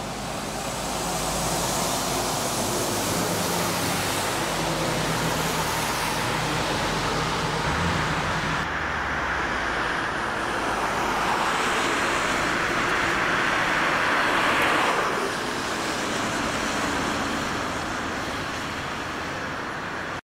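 Road traffic: a car's engine runs low under steady road noise, then tyre and engine noise swells and drops away suddenly about fifteen seconds in.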